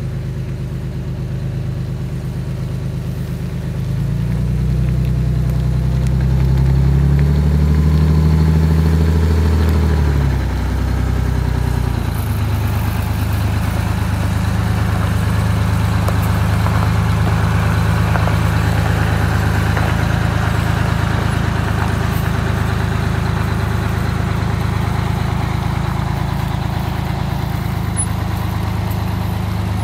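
Large bus engine running, revving up about four seconds in and easing back around ten seconds, then running steadily as the bus pulls away.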